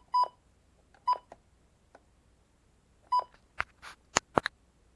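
Short electronic key-press beeps from a weather radio's buttons, each a brief buzzy tone around 1 kHz: two right at the start, one about a second in and one about three seconds in. A few sharp clicks follow near the end.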